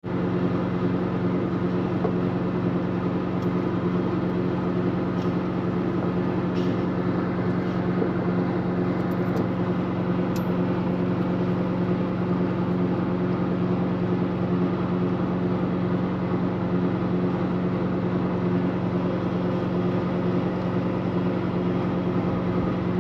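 Truck-mounted concrete boom pump running steadily: a constant engine and hydraulic drone with a strong low hum that starts suddenly and holds an even level.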